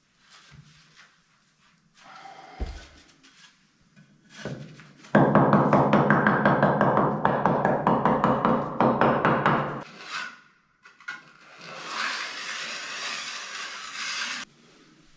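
A steel trowel knocking, scraping and rasping on wet mortar and building blocks while the blocks are set in a row. A loud stretch of rapid scraping strokes runs through the middle, and there is a softer, hissing scrape near the end.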